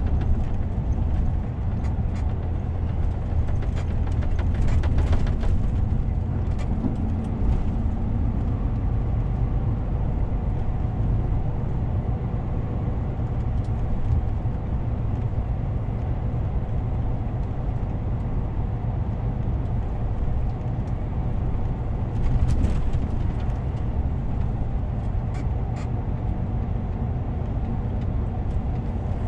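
Inside the cab of a moving DAF CF 450 truck: the steady low rumble of its six-cylinder diesel engine mixed with road noise, with brief louder patches about five seconds in and again about two-thirds of the way through.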